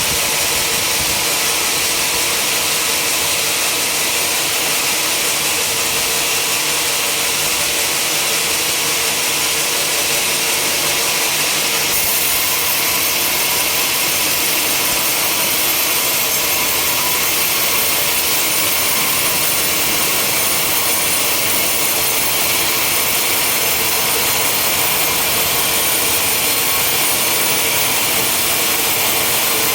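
Sawmill saw running steadily through timber, a constant loud hiss that turns sharper about twelve seconds in.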